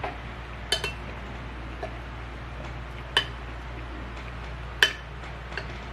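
Cutlery clinking against dishware in a few separate sharp strikes with a brief ring, over a steady low hum.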